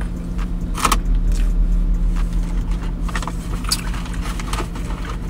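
Car running at a steady idle, heard from inside the cabin as a constant low hum. Over it come a few short rustling clicks, the sharpest about a second in and a cluster around three to four seconds.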